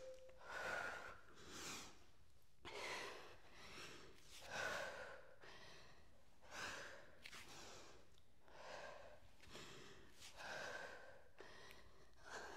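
Faint, heavy breathing of a woman exercising hard, a breath in or out about every second.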